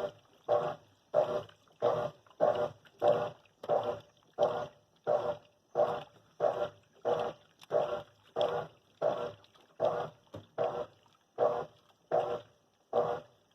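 GE 10 kg top-loading washing machine agitating: the agitator churns the load back and forth in a steady rhythm of short strokes, about three every two seconds, each separated by a brief pause.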